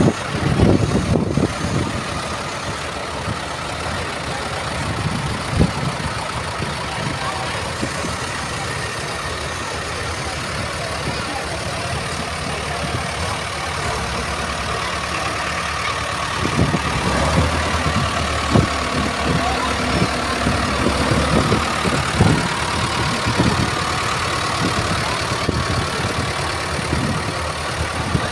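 Diesel tractor engines of Ford 6810 tractors running at low speed as they drive slowly past in a line, a deeper, louder engine rumble coming in after about sixteen seconds as a County four-wheel-drive tractor draws close. Crowd voices mix in faintly.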